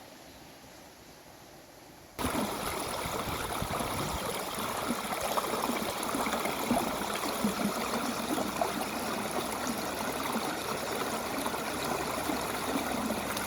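A steady rushing noise with a bubbling, fluctuating texture that starts abruptly about two seconds in.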